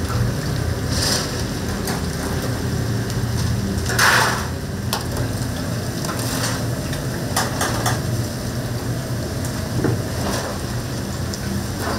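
Chicken deep-frying in a vat of oil, a steady sizzle, with metal utensils or a frying basket scraping and clanking now and then, loudest about four seconds in. A steady low hum runs underneath.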